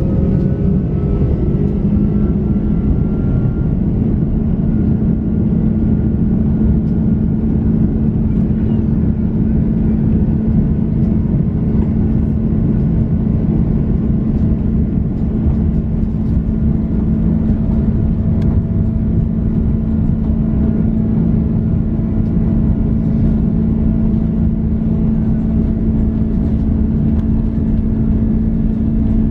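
Airbus A330-300 jet engines, Rolls-Royce Trent 700s, heard from inside the cabin: a loud, steady drone with a constant hum. A few higher tones shift slightly in pitch during the first few seconds.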